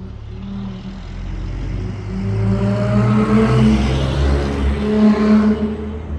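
Dodge Charger SXT's V6 exhaust through Flowmaster Super 10 mufflers, heard as the car drives past: the exhaust note grows louder, peaks about four to five seconds in, then fades away.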